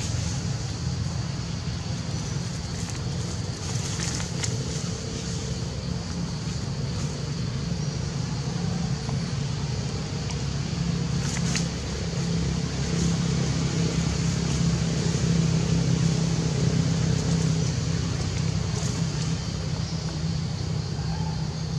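Steady outdoor background: a low rumble and hum with a steady high buzz above it, and a few faint snaps or clicks.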